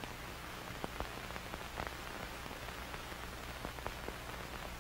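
Faint steady hiss with a low hum and scattered light ticks.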